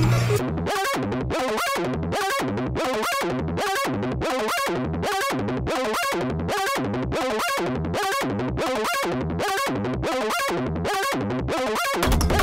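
Background music: a steady, even pulse of short notes, about two and a half a second, with no bass line. Fuller music with a bass comes back in near the end.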